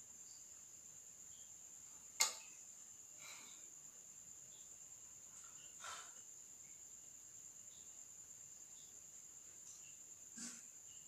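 A cricket's steady, faint, high-pitched trill. A sharp click sounds about two seconds in, and softer knocks come near six and ten seconds.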